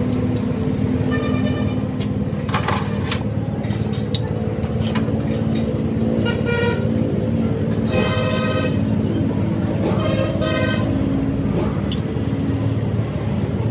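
Vehicle engine running steadily, with several short horn toots over it: one about a second in, and a few more in the second half.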